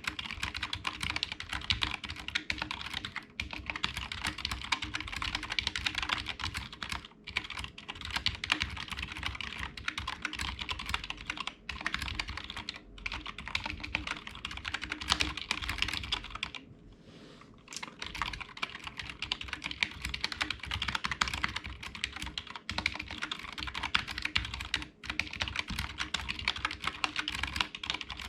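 Fast typing on a Cooler Master CK351 gaming keyboard with optical switches: a dense, continuous clatter of key clicks, broken by a pause of about a second roughly two-thirds of the way in.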